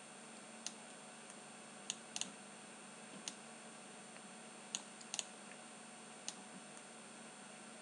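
Computer mouse button clicking about eight times, single clicks and quick pairs spread unevenly, over a faint steady hiss.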